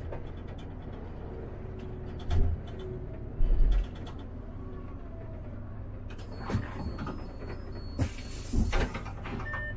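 City bus heard from inside, its engine running with a steady low hum. A couple of heavy low thumps come a few seconds in, and a short burst of compressed-air hiss comes near the end.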